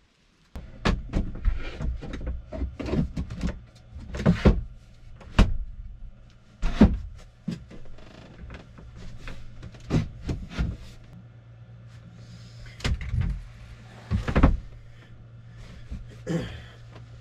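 Repeated wooden knocks and clunks as an oak board is handled and fitted under a lift-up bed in a van, over a low steady hum.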